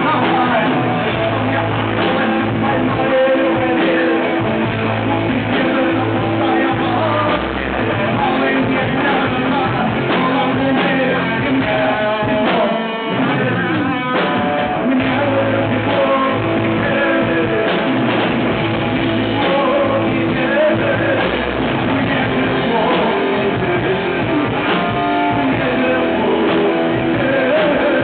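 Live rock band playing a song, with guitars to the fore over bass, heard as a loud, dense mix.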